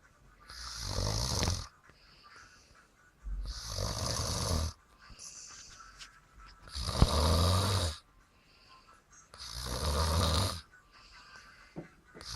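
A person snoring loudly, four long snores of about a second each coming roughly every three seconds, with faint breathing in between and a fifth snore starting at the very end.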